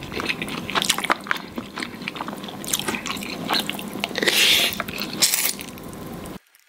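Close-up wet eating sounds of a person slurping and chewing saucy spaghetti: many small lip smacks and clicks, with a louder drawn-in slurp about four seconds in. The sound drops out abruptly just before the end.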